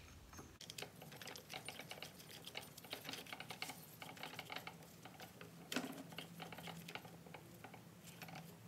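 Faint rapid, irregular light clicking and ticking of metal parts as the clutch center nut goes onto the shaft of a Yamaha YZ125 two-stroke engine, with one sharper click about six seconds in.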